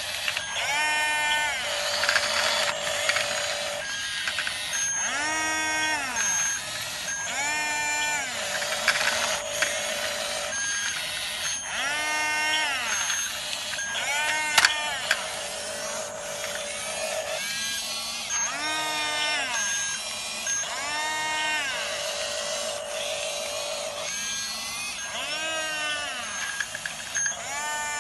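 Remote-control model bulldozer's electric drive motors and gearboxes working: a whine rises, holds and drops back every few seconds as the throttle is pushed and released, over a constant clatter of gears and tracks.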